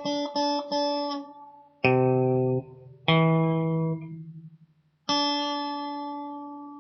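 Guitar being picked: three quick notes in the first second, then three chords struck about a second or more apart. The first of these is cut short; the last is left ringing and fades away.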